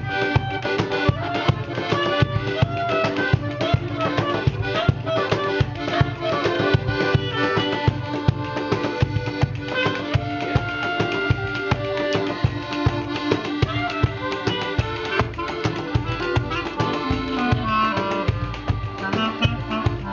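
A band playing instrumental music live, with a fast, steady drum beat under sustained melody notes.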